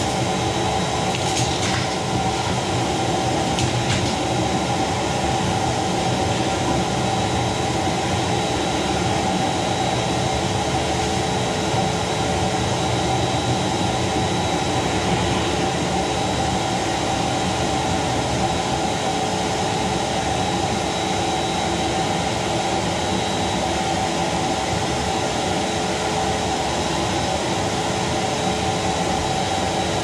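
Rowenta vacuum cleaner running steadily, its motor giving a constant whine over the rush of air through the hose, with a couple of light knocks in the first few seconds.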